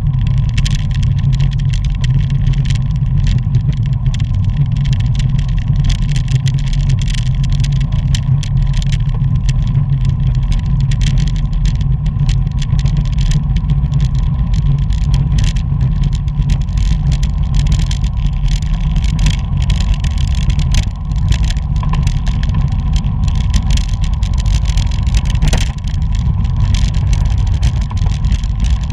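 Steady low rumble of wind buffeting a bicycle-mounted camera's microphone at riding speed, with a flickering hiss of road noise above it.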